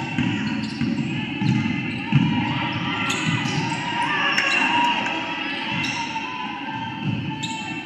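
A basketball dribbling on a gym floor during play, a repeated low bounce, with voices calling across the gym.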